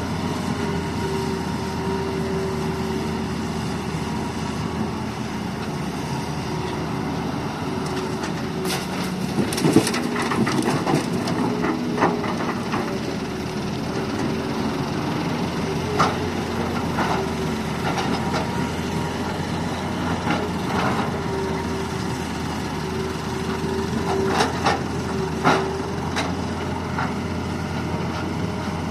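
Excavator's diesel engine running steadily, its pitch shifting as it works, with scattered knocks and clatters as it loads fill soil into a dump truck's bed, most of them bunched together about a third of the way in.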